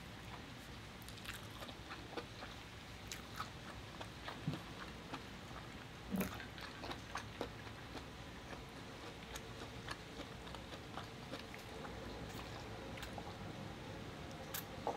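Close-miked mouth sounds of someone eating: chewing lobster meat with small wet clicks and smacks, then sips from a water bottle's straw.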